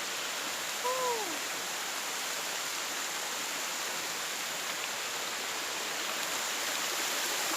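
Erawan waterfall's seventh tier: water falling and rushing steadily. A short falling vocal sound about a second in.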